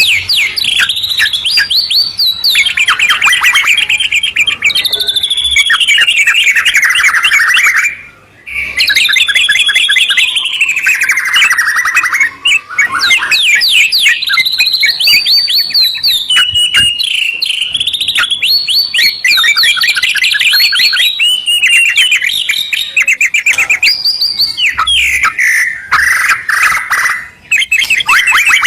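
White-rumped shama and yellow-vented bulbul singing loudly together in a dense, continuous duet of rapid repeated-note trills and sweeping whistled phrases, broken by one short pause about eight seconds in.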